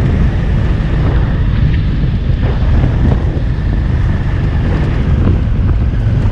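Wind buffeting the microphone of a camera on a moving off-road motorcycle, a loud steady low rumble, with the motorcycle's engine running beneath it.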